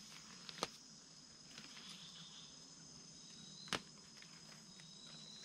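A night-time jungle insect chorus with steady high-pitched trilling, and a second, lower trill joining a little past halfway. Two sharp clicks sound through it, about half a second in and just before four seconds.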